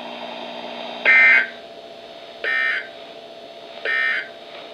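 Emergency Alert System end-of-message signal on a weather radio broadcast: three short bursts of SAME digital data tones, a buzzy warbling chirp each, about a second and a half apart. They mark the end of the high wind warning message. Faint radio hiss and hum run underneath.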